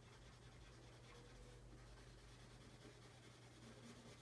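Faint scratching of a felt-tip marker colouring in on paper, in repeated short strokes.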